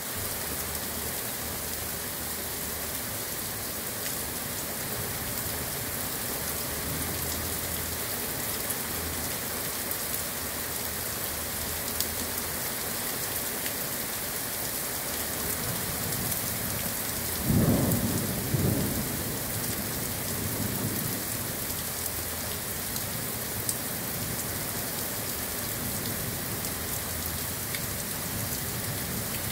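Heavy summer rain falling steadily. A little past halfway, a short low rumble of thunder comes through, the loudest moment, fading over a second or two.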